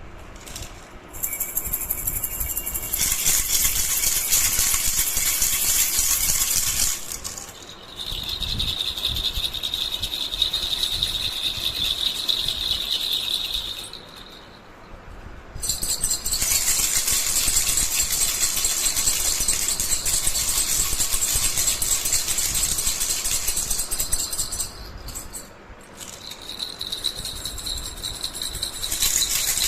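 Baby rattle toy shaken fast and continuously in long stretches of several seconds, with brief pauses between them; some stretches carry a steady high ringing tone along with the rattling.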